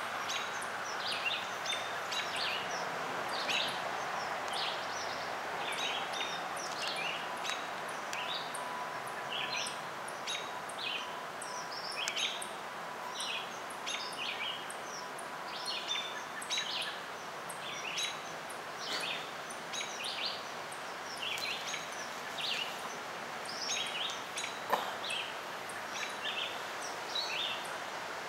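Small songbirds chirping, short high calls repeated over and over on top of a steady background hiss, with one sharp click near the end.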